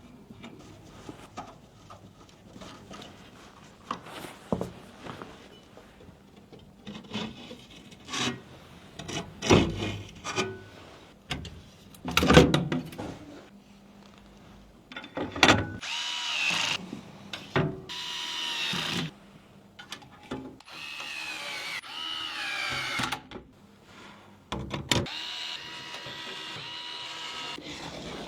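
Clicks and knocks of PC parts being handled, then an electric screwdriver whirring in several bursts of a few seconds each, its pitch sliding as it speeds up and slows while driving screws.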